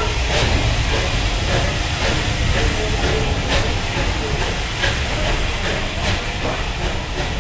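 Bulleid Battle of Britain class 4-6-2 steam locomotive 34072 passing close by with a steady hiss of steam, then its tender and coaches rolling past. Sharp wheel clicks over the rail joints come about once a second over a low rumble.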